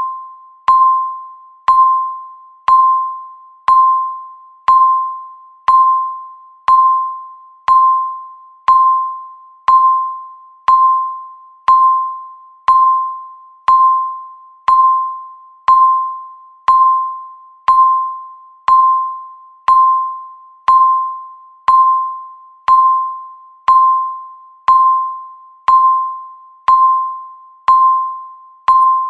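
Countdown timer's electronic beep sounding once every second. Each beep is a single mid-pitched tone that starts sharply and fades away before the next one.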